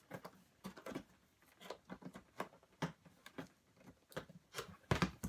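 Irregular small clicks and taps of plastic packaging pieces being peeled off and popped out of a drone box, with a louder pair of clicks about five seconds in.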